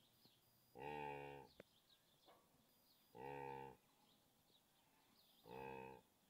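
Blue wildebeest calling: three short, nasal, evenly pitched calls, each about half a second long and about two seconds apart.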